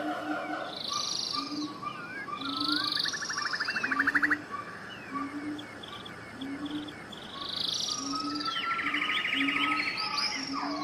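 Jungle chorus of many birds calling at once: chirps, swooping whistles and two rapid buzzy trills, over a short low note repeated about once a second.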